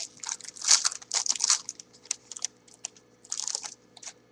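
Foil wrapper of a Topps jumbo football card pack being torn open and crinkled in the hands: a run of crackling rustles for about a second and a half, scattered crinkles after, and another short burst about three and a half seconds in.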